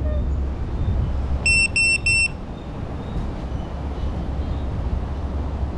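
Three short electronic beeps of the same pitch in quick succession, about a second and a half in, over a steady low rumble.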